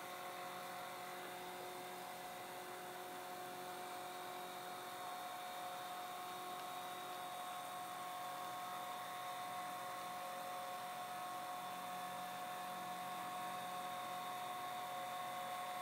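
Faint, steady electrical hum made of several high, unchanging tones over a light hiss.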